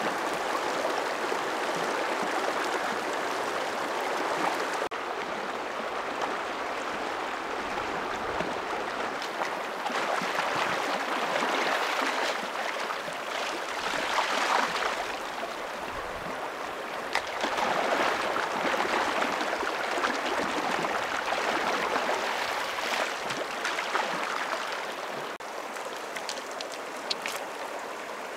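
Shallow stream rushing over stones, a steady wash of water. Through the middle it grows louder with splashing and pouring as a raw turkey carcass is rinsed in the current.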